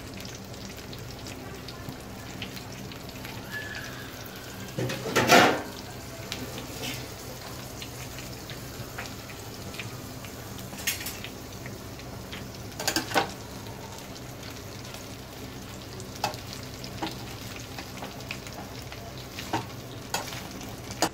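Masala-stuffed ridge gourd pieces sizzling as they sauté in hot oil in a nonstick pan. A few knocks and scrapes of the spatula turning them break in, the loudest about five seconds in.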